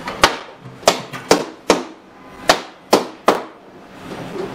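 A run of about eight sharp metallic clicks and knocks at irregular intervals as the swing-bolt clamps and latch on the lid of a vacuum OCA lamination machine are loosened, swung aside and the lid opened.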